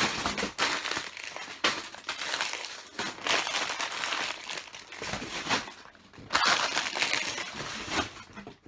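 Plastic LEGO parts bags crinkling and rustling as they are handled, in uneven bursts with sharp crackles.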